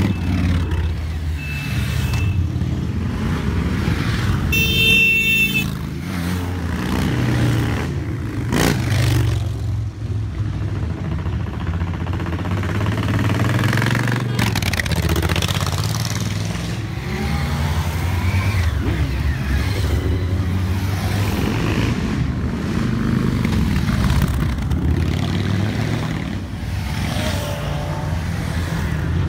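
A procession of motorcycles, cruisers among them, riding past one after another at low speed, their engines rumbling steadily and rising and falling as each bike passes. A horn honks for about a second about five seconds in, with a shorter beep a little before.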